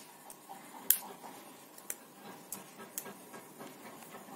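Small sharp clicks and light rustling as an oscilloscope probe's hook tip and clip leads are handled and clipped on. The sharpest click comes about a second in, with a few fainter ones after.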